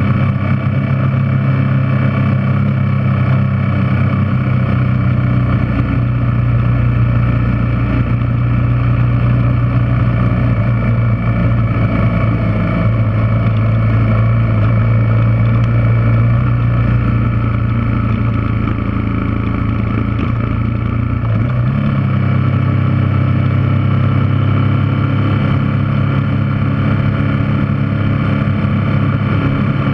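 Yamaha TW200's air-cooled single-cylinder four-stroke engine running steadily under way. Its note shifts slightly about two-thirds of the way through.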